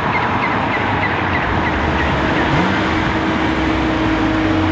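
BMW M2 Competition's twin-turbo 3.0-litre inline-six driving toward the camera: a steady engine note under even road and wind noise.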